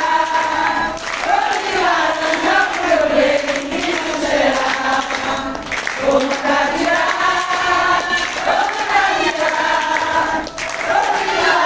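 A group of voices singing together in phrases of a few seconds each, with short breaks between them.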